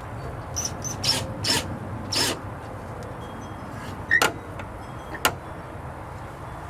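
Hasp latch hardware being worked on a wooden gate: a few short scraping rubs, then two sharp clicks.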